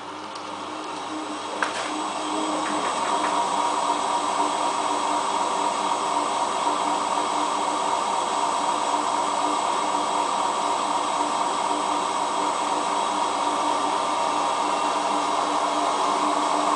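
Hotpoint Ultima WT960 washing machine spinning up: the running noise builds over the first few seconds, then holds steady with a tone that climbs slightly, and there is a single click about two seconds in. The loud spin noise is the one the owner blames on worn-out drum bearings.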